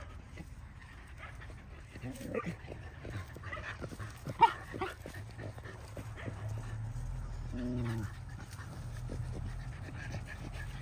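Dogs at play making a few short vocal sounds over a steady low background hum. The loudest is a sharp sound about four and a half seconds in, and a short drawn-out call comes near eight seconds.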